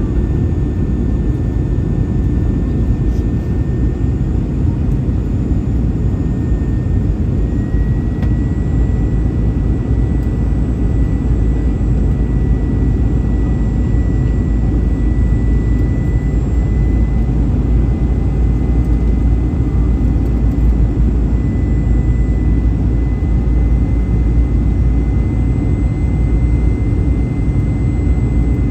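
Steady cabin noise inside an Airbus A321-211 in flight: a deep rumble from its CFM56 jet engines and the airflow. A faint high steady whine steps slightly higher about eight seconds in.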